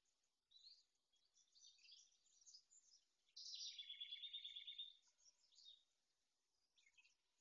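Faint songbirds singing and chirping, with one louder rapid trill of evenly repeated notes lasting about a second and a half, roughly halfway through.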